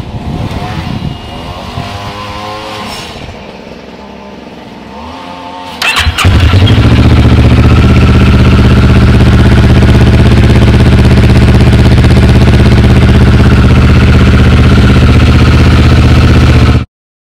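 Kawasaki Ninja 650R parallel-twin engine idling warm through a Screaming Demon slip-on exhaust. It is quieter at first, then from about six seconds in it is loud and steady close to the muffler, with no revving, and it cuts off suddenly near the end.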